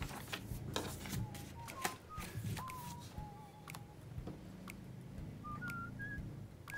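Soft whistling: a slow, wandering series of pure notes, climbing higher after about five seconds. Light clicks and rustles of paper handling sound over a low steady hum.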